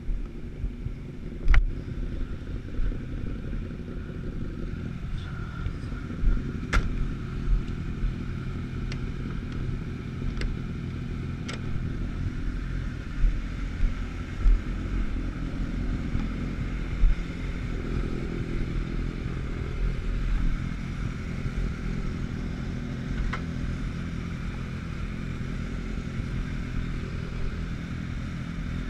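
Sport motorcycle engine idling steadily, with a few sharp clicks and knocks over it.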